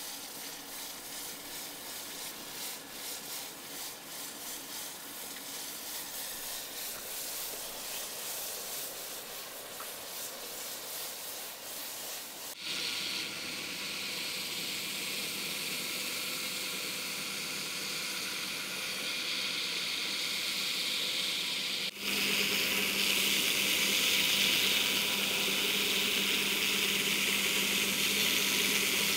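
A red-hot forged axe head being quenched in a bucket of water to harden it, sizzling and hissing unevenly. After an abrupt change a little under halfway through, a belt grinder sands a wooden axe handle, with a steady grinding rasp that gets louder after a second cut about three quarters of the way in.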